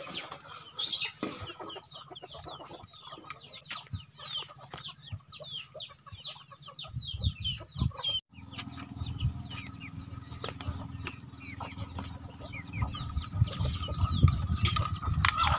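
Free-ranging chickens clucking and chirping, many short falling chirps one after another, with scattered clicks and a low rumble joining in about halfway.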